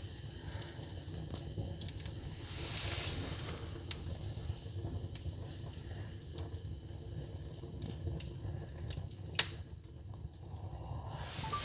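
Fire burning in a fireplace: a steady low rumble with frequent small crackles, and one sharp loud pop a little over nine seconds in.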